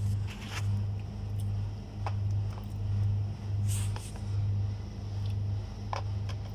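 A steady low hum that swells and fades about every three-quarters of a second, with a few small clicks and taps, like a spoon against a plastic food container, and a brief soft hiss partway through.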